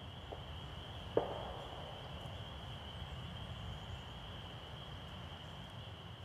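Quiet woodland ambience: a steady high-pitched drone over a low rumble, with one sharp knock about a second in.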